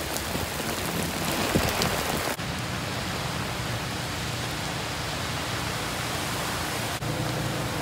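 Heavy rain pouring onto a flooded street, a steady hiss of rain and running water. About two seconds in it abruptly turns duller, a steady wash of rain with car tyres swishing through standing water.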